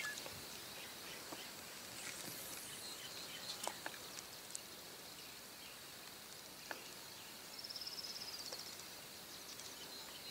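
Faint outdoor ambience with a few soft clicks, and a brief run of faint rapid ticking about three-quarters of the way through.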